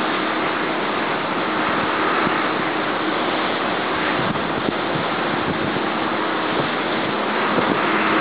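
Rough, stormy sea surging and breaking as a steady rushing wash of surf, with a faint steady hum underneath.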